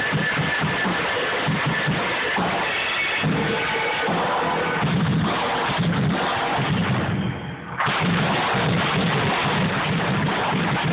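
Drums being played loudly in a continuous, busy rhythm of repeated hits. The sound drops away briefly about seven seconds in, then carries on.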